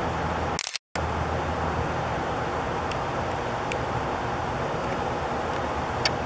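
Steady background noise with a low hum under it, cutting out completely for a split second about a second in. A few faint clicks come near the end.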